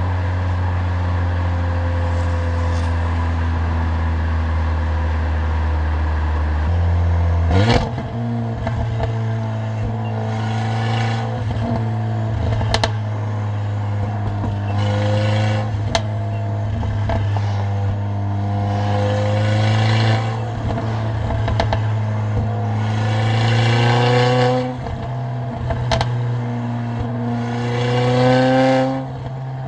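Mercedes-AMG CLA45's turbocharged four-cylinder engine and exhaust while driving: a steady drone for about seven seconds, then a sharp crack and a series of pulls where the engine pitch rises and drops back, about five times. A few sharp pops from the exhaust are scattered between the pulls.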